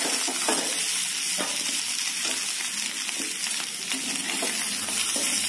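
Boiled potato pieces sizzling in hot ghee in a kadhai over a high gas flame, a steady frying hiss. A spatula scrapes and knocks against the pan several times as the potatoes are scooped out.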